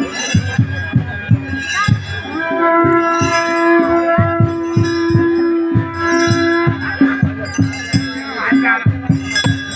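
Traditional ritual music: drums beating a driving rhythm at about four strokes a second, with a long steady note held for about four seconds in the middle.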